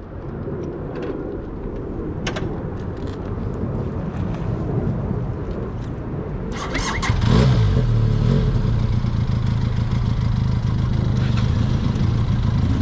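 Motorcycle engine starting just over halfway through, revving up briefly and then settling into a steady idle. Before it starts there is a low rumble with a few clicks.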